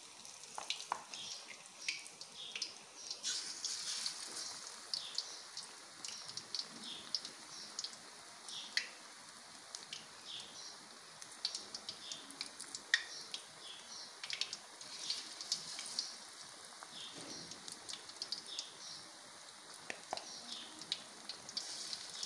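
Pakoras deep-frying in hot oil in a wok: a steady sizzle with frequent crackles and pops.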